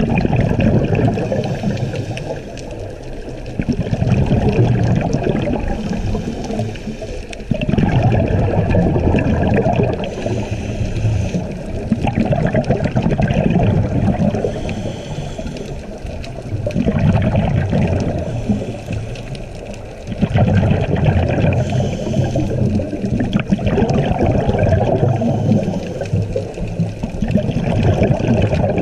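Scuba diver's exhaled bubbles rushing from the regulator, heard underwater through the camera housing, in bursts about every four seconds with the breathing.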